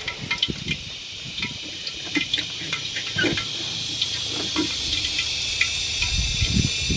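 Firewood burning under a wok, crackling with scattered small pops over a steady high hiss that grows slowly louder. A few soft low knocks come near the end.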